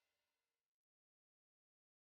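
Near silence: the last faint trace of background music dies away under a second in, then dead silence.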